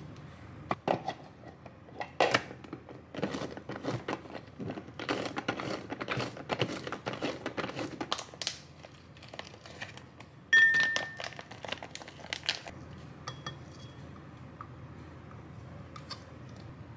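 A small hand-operated food chopper chopping lime wedges and mint leaves: a run of quick, rough rattling strokes lasting about five seconds. About ten and a half seconds in comes a loud, sharp clink with a short ring, followed by a few lighter knocks of the chopper being handled.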